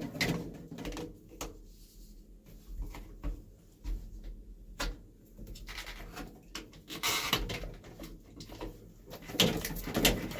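Scattered clicks, knocks and a scrape of hands and tools working rubber fittings loose from a garbage disposal under a kitchen sink, with one sharp click about halfway through.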